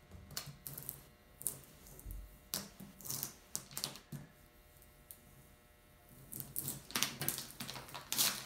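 Clear transfer tape being peeled slowly back off a freshly applied decal: faint, irregular crackling and ticking as the tape lets go, easing off for a couple of seconds about halfway through before starting again.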